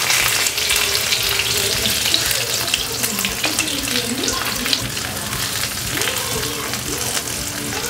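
Marinated fish pieces shallow-frying in sesame oil on a flat iron tawa: a steady sizzle with scattered crackles.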